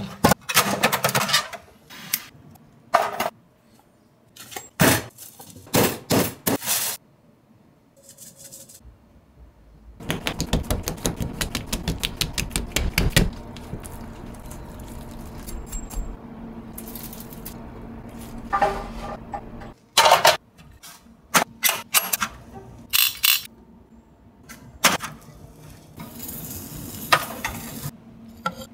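Cooking and grill handling sounds: a string of separate clicks, knocks and rattles, with a run of rapid clicking about ten seconds in, then a steadier low sound under more taps for several seconds.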